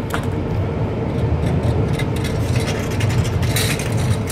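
Metal shopping trolley being dragged up out of canal water onto a concrete edge: water splashing and pouring off it, its frame clattering from about a second and a half in. A loud, steady low rumble runs underneath.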